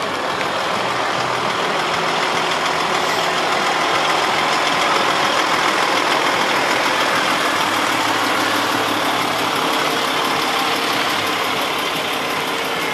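A road vehicle's engine running steadily close by, a little louder in the middle.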